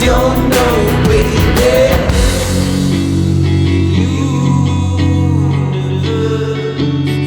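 Rock music from the song's closing section: band with drums and guitar. The drums drop out about two seconds in, leaving held guitar chords over sustained bass notes.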